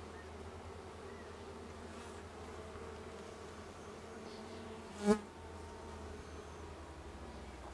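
Honeybees buzzing steadily around an open hive during a frame inspection, with one brief louder buzz about five seconds in.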